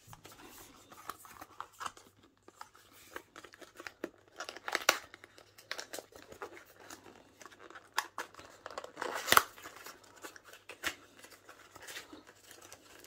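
Small cardboard box of a universal TV remote being opened by hand: rustling, scraping and tearing of the card flaps and tab, with sharper rips about five and nine seconds in.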